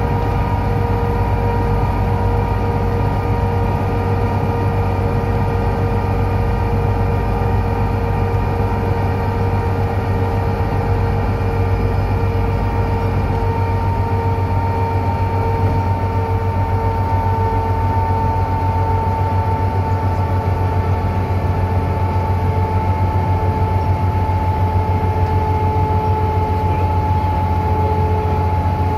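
Inside a DAF DB250 Lowlander double-decker bus on the move: a steady low engine and road drone with a loud, high axle whine over it. The whine dips slightly in pitch in the second half.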